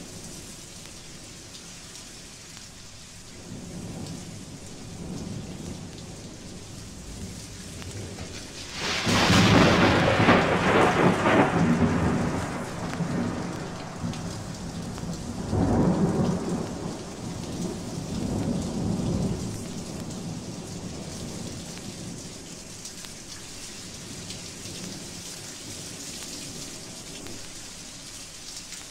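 Vinyl recording of a thunderstorm: steady rain, with a sudden close thunderclap about nine seconds in that rolls on for a few seconds. A second peal of thunder rumbles around sixteen seconds in.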